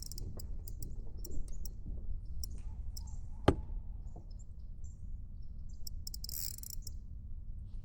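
Quiet outdoor ambience on a kayak with faint scattered ticking, broken by a single sharp knock about three and a half seconds in, and a brief hissing splash a little after six seconds.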